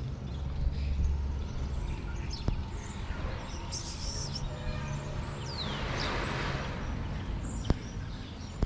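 Outdoor background noise with a few short high bird chirps, including one falling chirp about five seconds in, over a low rumble.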